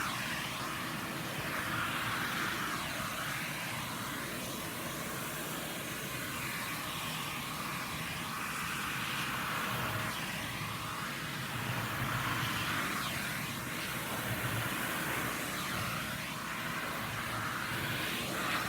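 Vacuum cleaner running steadily, its rushing hiss shifting up and down in pitch now and then.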